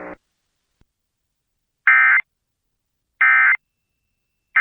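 Emergency Alert System end-of-message code: three short, identical bursts of screechy digital data tones, about 1.3 seconds apart, signalling that the alert is over. The third burst begins just before the end.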